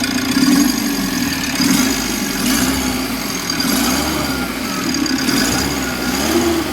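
Mitsubishi L300 engine idling steadily, with no grinding from the accessory belt after its adjuster pulley bearing was replaced. What remains is the engine's own running noise.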